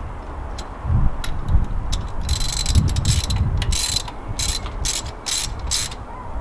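Ratchet wrench clicking in a run of short strokes, refitting spark plugs into the engine.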